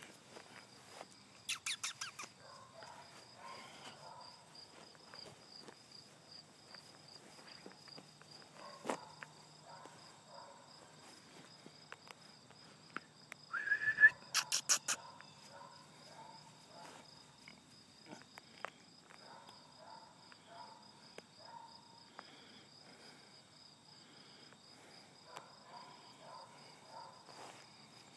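Steady, rapidly pulsing high-pitched insect chirping. Twice it is broken by a quick run of sharp clicks, near the start and, louder, about halfway through, the second run coming just after a short rising squeak.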